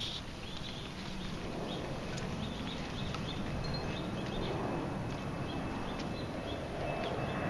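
Outdoor background noise: a steady low rumble with faint, rapidly repeated high chirps and a few isolated sharp clicks.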